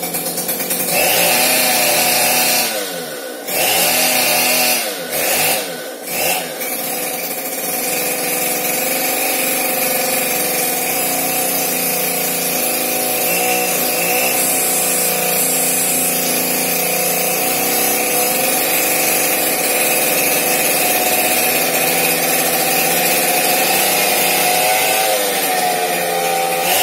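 A small engine running steadily at a held speed, its pitch sweeping up and down briefly near the start and again near the end.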